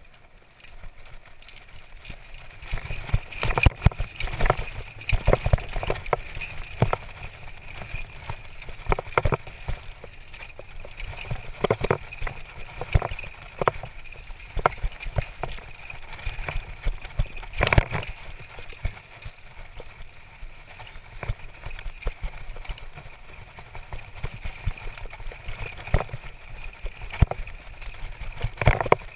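Mountain bike riding fast down a dirt singletrack, picked up by a GoPro: steady tyre and trail noise over dirt and dry leaves, broken by frequent irregular knocks and rattles from bumps.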